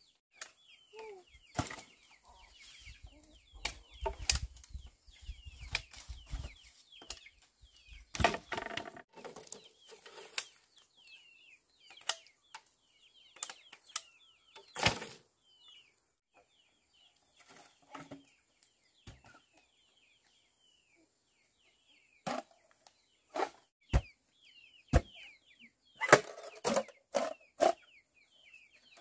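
Sharp knocks and chops at irregular intervals, loudest in a cluster near the end, with birds chirping throughout.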